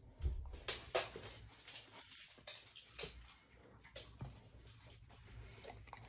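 Dogs moving about, their claws clicking and tapping on the floor in scattered light taps, with two louder knocks in the first second.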